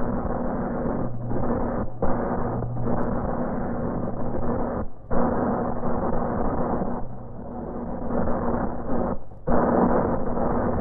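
Horror film soundtrack: a dense, steady rush of noise over a low hum, broken by several short drop-outs.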